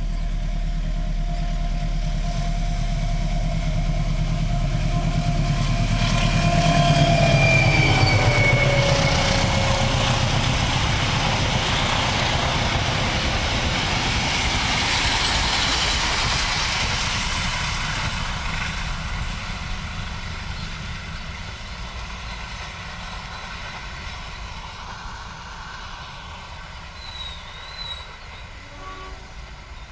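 A General Electric diesel-electric locomotive hauling a passenger train approaches and passes close by, its engine running loudly. A held high tone drops in pitch as it goes past. The carriages then roll by with a clickety-clack of wheels on rail joints, and the sound fades as the train moves away.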